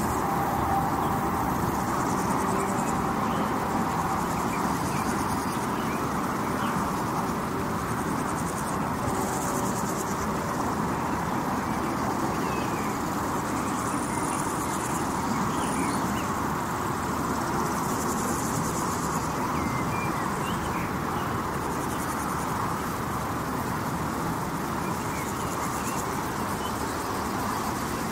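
Steady roar of highway traffic, with crickets chirping in high patches that swell and fade every few seconds and brief faint bird chirps scattered through.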